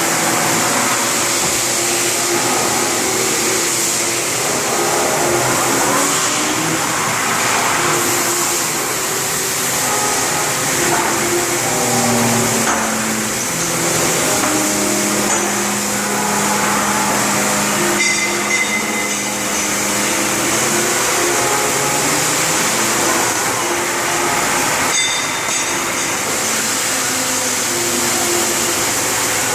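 CNC machine running: a steady whirring noise with changing whining tones that shift in pitch every second or so as it works.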